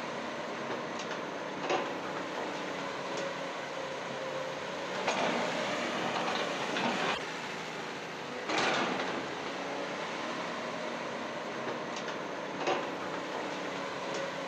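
Small electric motors and plastic gearboxes of a toy RC construction vehicle whirring steadily, with a few sharp clicks and two louder grinding stretches, around five seconds in and again near eight and a half seconds.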